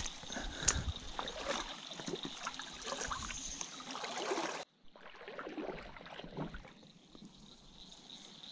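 Kayak forcing its way through reeds and tall grass at the water's edge: rustling and scraping of stems against the hull and body, with light water trickle and splashing. Busier in the first half, cutting out briefly a little past halfway, then quieter.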